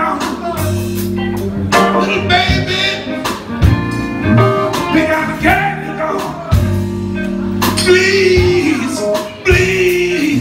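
Live soul band playing, with a lead vocal over electric guitar, bass and drums, and sharp drum hits throughout.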